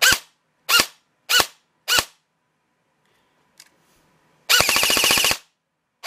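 Airsoft M4 electric gun with a rebuilt Version 2 gearbox cycling: four single shots about two-thirds of a second apart, then a fast full-auto burst about a second long, with another burst starting at the very end. The owner thinks the motor is a little weak for the cut 130 spring, so the rate of fire is slower than with the old spring.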